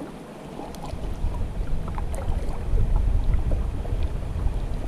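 Wind rumbling on the microphone, growing stronger after about a second, with a few faint clicks.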